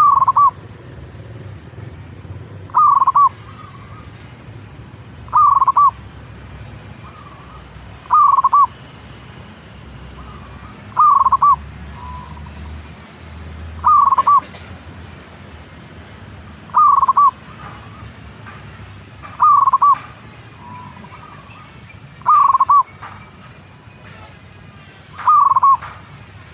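Zebra dove (local perkutut) cooing: a short call with a falling pitch, repeated evenly about every three seconds, ten times in all. Faint chirps of other birds sit behind it.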